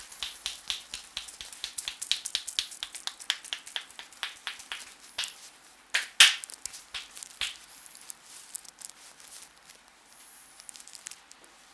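Rapid hand taps and slaps on the head and scalp during an Indian head massage, several strokes a second. A couple of louder slaps come about five and six seconds in, then the taps grow fewer and fainter.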